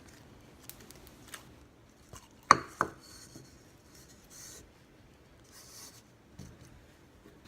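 Hands playing with a sticky glue slime base, making scattered small clicks and pops, the sharpest two close together about two and a half seconds in.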